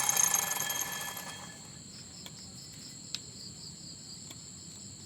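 A small motor running stops about a second and a half in, leaving crickets chirping: a steady high trill with a pulsing chirp about four times a second. A few faint clicks come in between.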